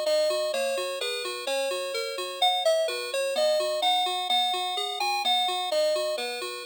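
NX-5776-675 doorbell playing one of its electronic chime tunes: a continuous melody of bell-like notes over a lower accompanying line, a new note about every half second, each struck and fading before the next.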